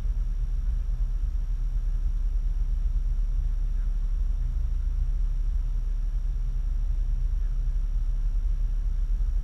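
Vehicle engine idling: a steady low rumble with no change in pitch or loudness.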